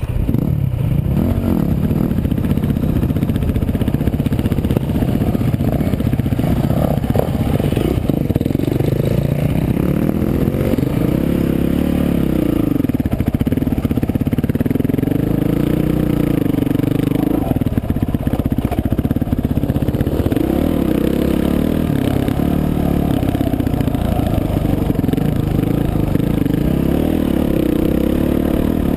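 Dirt bike engine running under way, its pitch rising and falling over and over as the throttle is opened and closed.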